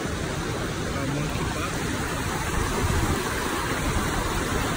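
Steady rush of a river pouring over a small weir waterfall: an even, unbroken noise with a low rumble underneath.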